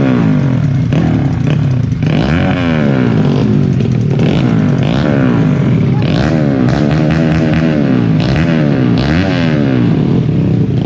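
Trail motorcycle engine revving up and falling back over and over, the pitch sweeping up with each burst of throttle.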